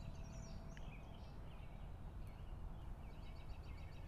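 Quiet room tone: a low steady rumble with faint, repeated high chirps of birdsong.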